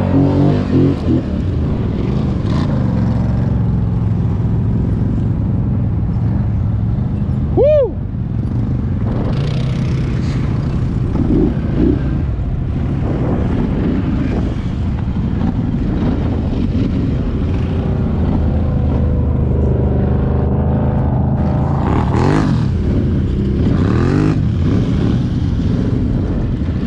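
ATV engine running under way, its pitch rising and falling as the throttle opens and closes, with revving near the end. A brief high-pitched chirp about eight seconds in.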